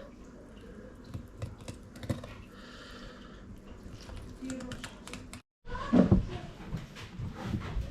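Sharp knife cutting an eel fillet along the backbone: a run of small irregular clicks and scrapes of the blade through the tough skin and flesh, with a few louder knocks after a brief dropout about five and a half seconds in.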